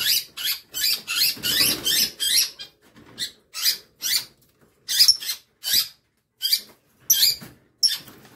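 Young lovebird shrieking in short, high-pitched squawks about two a second while it is grabbed by hand in a wire cage: distress calls at being handled.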